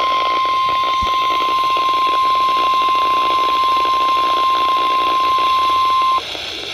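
NOAA Weather Radio warning alarm tone, a single steady 1050 Hz beep over radio static, cutting off suddenly about six seconds in and leaving the hiss of the receiver.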